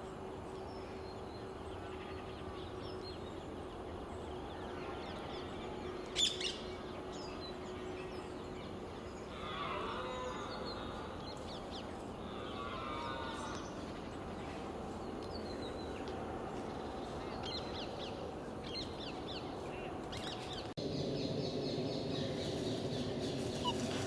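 Outdoor parkland ambience with bird calls: two short runs of calls about ten and thirteen seconds in, scattered small chirps, and one sharp tap about six seconds in.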